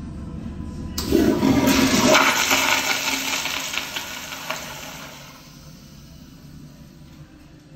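Kohler Highcliff commercial toilet flushing: a sudden rush of water starts about a second in, runs loud for a couple of seconds, then fades to a quieter trickle as the bowl drains.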